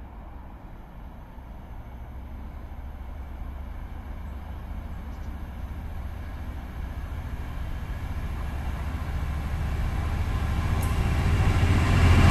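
Class 66 diesel freight locomotive approaching, its two-stroke V12 engine note growing steadily louder until the locomotive passes close by at the end.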